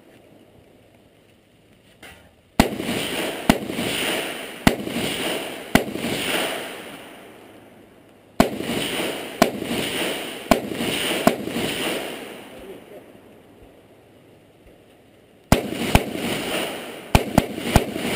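Gunshots from a semi-automatic AR-style rifle, each with a rolling echo. The shots come in three strings: four about a second apart starting a couple of seconds in, four more at the same pace a few seconds later, and a quicker string of about six near the end.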